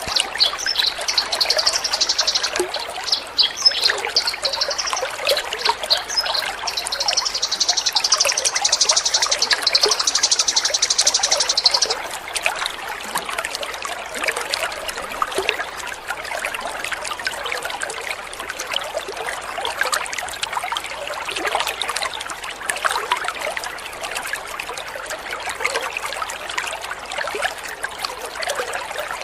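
Water trickling and splashing steadily, with a songbird singing fast, dense, high-pitched trills over it for about the first twelve seconds; then the song stops and only the trickling water goes on.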